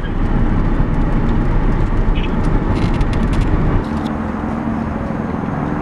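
Car road and engine rumble heard from inside the moving car, with a few light clicks about three seconds in; the rumble drops back about four seconds in to a steadier, quieter hum.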